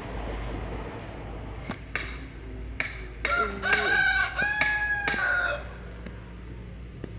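Rooster crowing once, a drawn-out crow of about two seconds starting about three seconds in. A few faint clicks come just before it.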